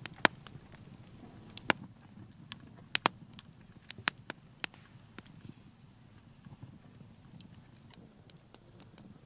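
Wood campfire and pine coals crackling: sharp irregular pops, several in the first five seconds and fewer after, over a faint low rumble.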